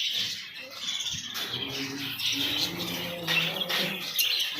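Lovebirds and a parrot squawking and chirping in a steady run of short, shrill calls.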